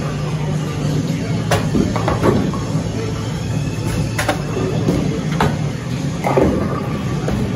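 Bowling alley din: a steady low rumble of ball returns and lane machinery, with sharp clatters of balls and pins from the lanes several times. A bowling ball comes up through the ball return near the end.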